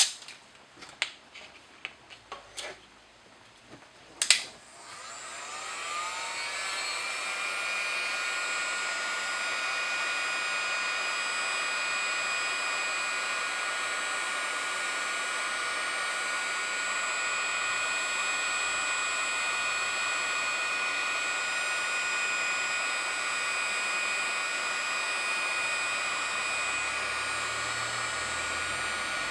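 A few clicks and knocks of handling, then a sharp click about four seconds in as a heat gun is switched on; its fan whines up over a couple of seconds and settles into a steady blowing rush, heating the velcro's adhesive.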